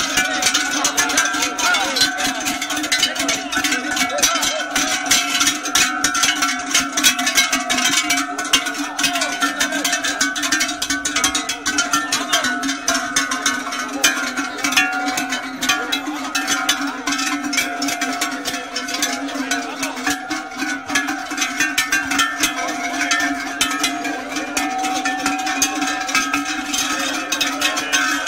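Several large cowbells (cencerros) on walking cattle, clanking constantly and ringing together in steady overlapping notes.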